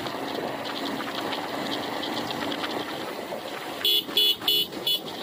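Motorcycle riding along a brick-paved road with steady engine and tyre noise, then its horn beeps four times in quick succession about four seconds in.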